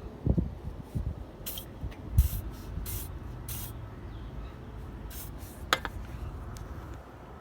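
WD-40 aerosol can spraying in about six short hissing bursts onto the car's suspension bushings to lubricate a squeak. A few dull knocks sound in the first couple of seconds.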